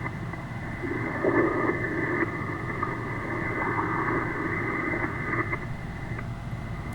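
Amateur radio receiver's speaker putting out steady shortwave static, cut off sharply above a set pitch by the audio filter, with a weak distant station's voice faintly buried in the noise. The other station is hard to copy because of poor band conditions.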